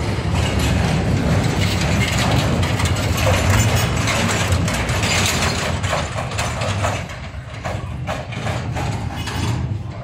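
Engine of a small utility vehicle running, with a steady low rumble and a busy metallic rattling and clanking.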